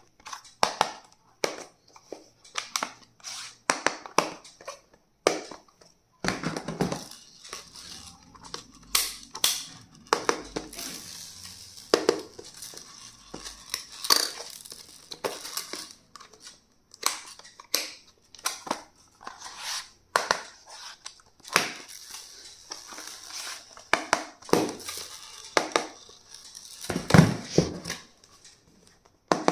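Plastic packaging crinkling and being handled, among many sharp clicks and taps of small objects against a hard surface.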